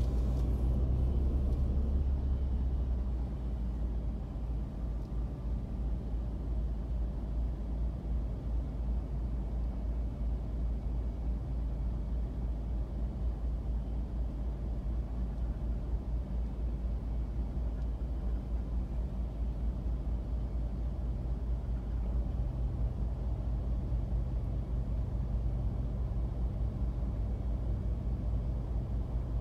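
Steady low rumble of idling vehicles in stopped traffic, heard from a stationary car. It is a little louder for the first few seconds.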